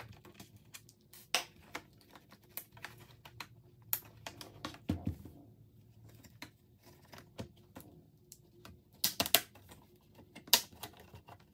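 Plastic retaining clips of a Lenovo Legion Y700 laptop's bottom cover clicking and snapping as the cover is pried loose and lifted off: an irregular scatter of sharp clicks, a dull thump about five seconds in, and a cluster of louder snaps near the end.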